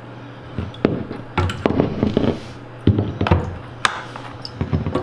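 Irregular light clicks and knocks of hand work on a freshly cut copper water-supply pipe stub-out: the cut-off piece, fittings and a glass jar being handled, over a steady low hum.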